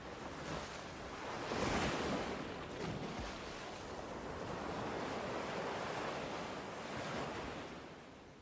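Ocean surf: waves washing in and breaking, with a swell about two seconds in and another from about five to seven seconds, fading out near the end.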